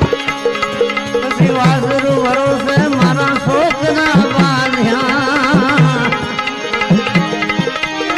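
Bhajan accompaniment: tabla playing a steady rhythm, its bass drum strokes bending in pitch. Underneath runs a sustained melody whose line wavers in pitch about halfway through.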